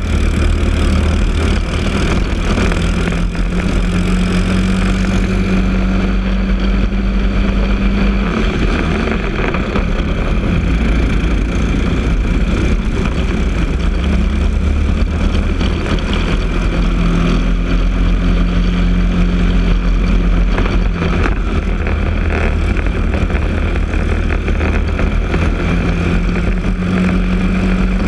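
Briggs & Stratton LO206 single-cylinder four-stroke kart engine racing at full throttle. It winds up in pitch on the straights and drops back when lifting for the corners, several times over.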